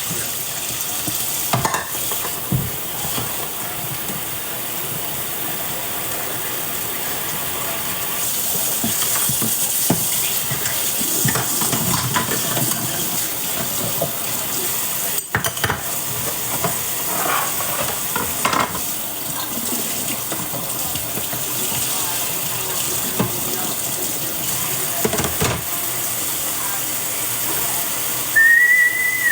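Chicken and vegetables sizzling in a frying pan, stirred with a utensil that knocks and scrapes against the pan now and then. A short high whistle comes near the end.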